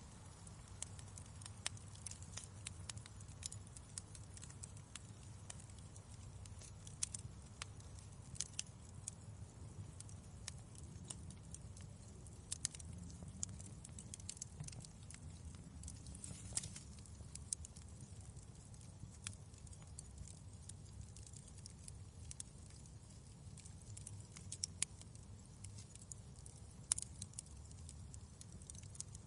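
Wood fire crackling in a fireplace, with a steady low rumble of flames under irregular sharp pops and snaps, a few of them louder than the rest.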